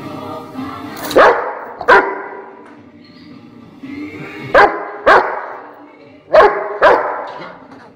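A rottweiler barking in three double barks, each pair about half a second apart.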